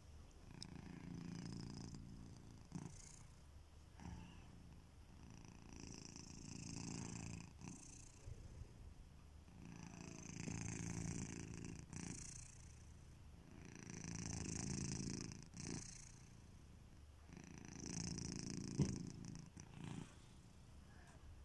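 Domestic cat snoring in its sleep: a low rumbling breath with a hiss on top, swelling and fading about every four seconds, five times. A single sharp click comes near the end.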